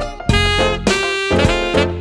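Background music: a lively melody of short notes changing several times a second.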